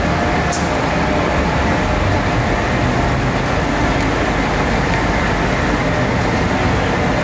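Metro station escalator running: a steady mechanical hum and rumble with faint constant tones, and a brief high hiss about half a second in.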